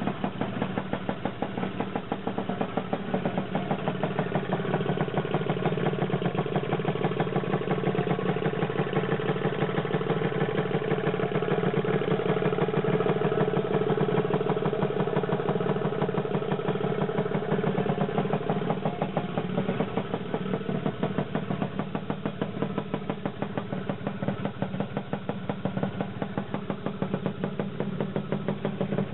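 Freshly rebuilt Lambretta two-stroke single-cylinder scooter engine running at idle, a rapid, even popping beat that grows a little louder through the middle and then settles back.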